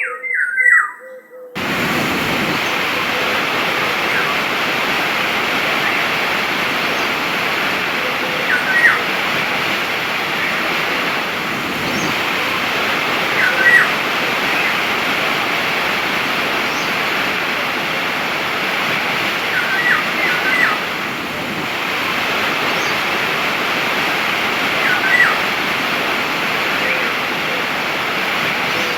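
A bird chirping alone, then a waterfall rushing steadily from about a second and a half in. Short two- or three-note bird chirps sound over the water every five seconds or so.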